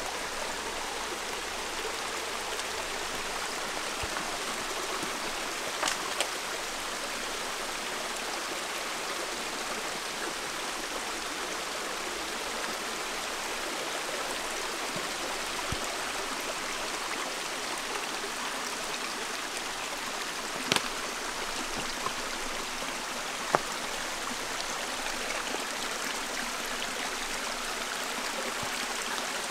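Mountain creek running over rocks and small cascades: a steady rush of water, with a few sharp clicks about six seconds in and again between about twenty-one and twenty-four seconds.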